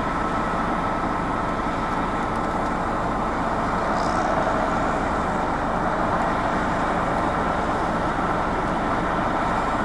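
Steady motor-vehicle engine and road noise, an even unbroken rumble with a faint steady whine.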